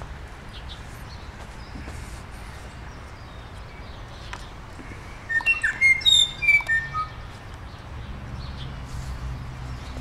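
Small songbird calling: a quick burst of sharp, high chirps about halfway through, with fainter scattered chirps before and after, over a steady low rumble.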